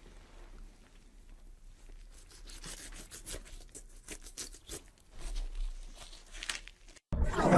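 Faint, irregular crackling and tearing noises with scattered clicks, like something being torn or crunched. Near the end a loud roar starts abruptly.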